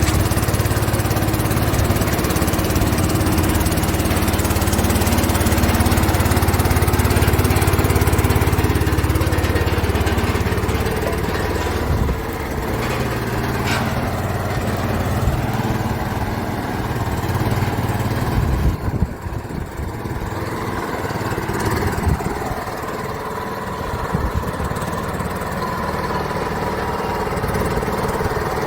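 Road roller's diesel engine running steadily, its low note easing a little partway through and dipping briefly before settling again.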